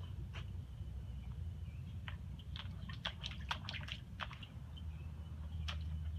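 A puppy pawing and splashing in rainwater held in an upturned plastic garbage can lid: a quick run of small splashes and taps, thickest in the middle, with a low steady hum underneath.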